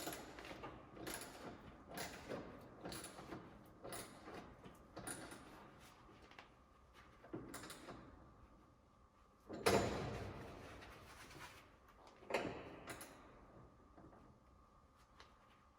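Metal tools and parts clanking during work on a car's front suspension: a run of light knocks about two a second, then two louder clanks that ring out, about ten and twelve seconds in.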